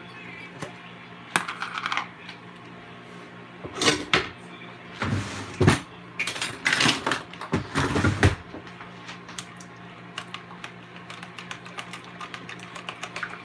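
A plastic food tub is handled and its snap-on lid pulled off, with a series of sharp clicks and knocks, then a spoon clicks and scrapes against the tub as sausage gravy is scooped out, in many small rapid clicks.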